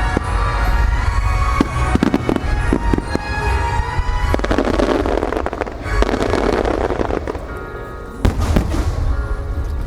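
Fireworks going off in quick succession: many sharp bangs over a deep continuous rumble, with a dense noisy stretch about halfway through. Music for the show plays underneath.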